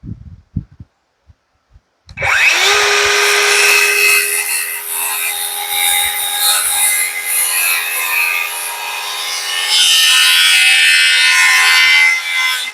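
A few light knocks, then an electric power saw spins up about two seconds in and cuts through a wooden board for about ten seconds, winding down near the end.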